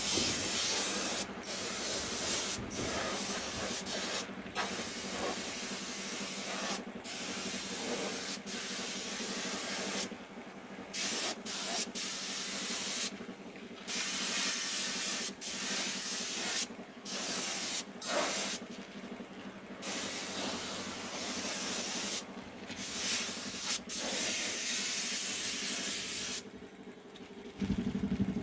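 Compressed-air paint spray gun hissing in bursts of a second or two, stopping and starting many times as the trigger is pulled and released.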